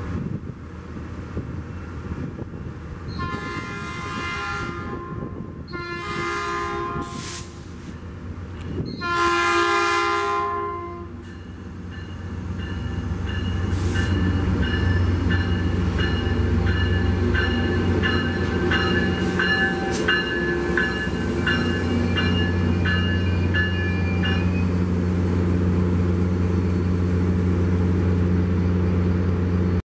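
Metrolink EMD F59PHR diesel locomotive sounding its horn in three blasts, the last the longest, then its engine running loudly as it pulls in and passes close by, with a fast repeated ringing like the locomotive bell until a few seconds before the end.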